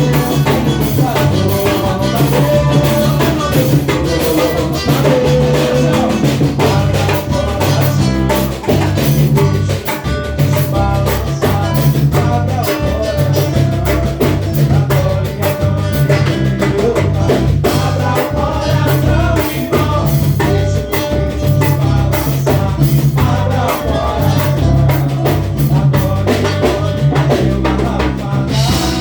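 Loud drum-driven music with a steady beat and melodic lines over it.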